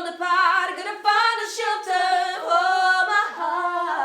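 Women's voices singing a cappella in harmony, the closing line of a pop song. Its last note begins to be held near the end.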